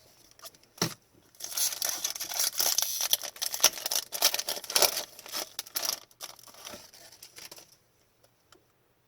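Foil wrapper of a hockey card pack being torn open and crinkled, a dense crackling that lasts a few seconds and then dies away.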